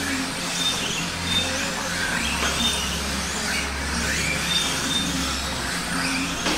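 Kyosho Mini-Z radio-controlled cars running on the track, a steady hum and hiss, with short high beeps scattered through it.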